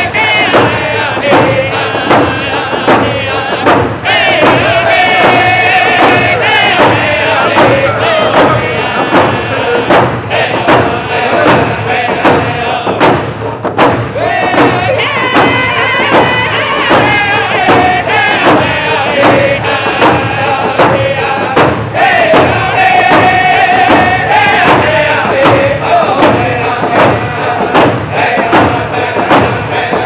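Group of men singing a round dance song in unison with a wavering, high lead voice, over a steady, evenly repeated hand-drum beat.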